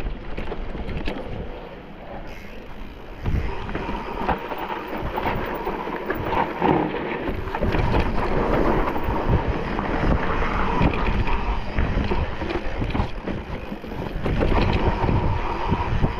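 Mountain bike riding a rough trail: wind buffeting the microphone over tyre noise and the irregular rattling and knocking of the bike.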